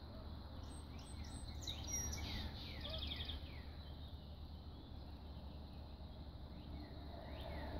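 Birds calling: a series of short falling chirps, with a brief high trill about three seconds in. The chirps come again near the end, over a steady low outdoor rumble.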